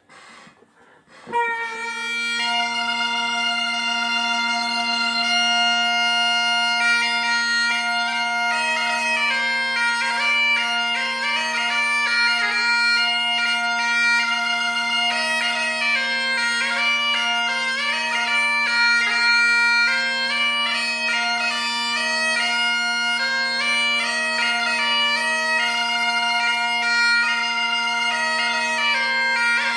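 A modern mouth-blown set of Cornish bagpipes starts up: the drone comes in a little over a second in, and the chanter then plays a dance tune over the unbroken steady drone.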